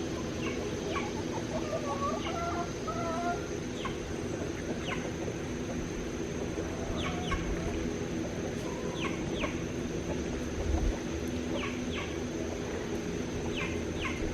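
Backyard chickens clucking and calling, short sharp notes every second or so, over a steady low hum.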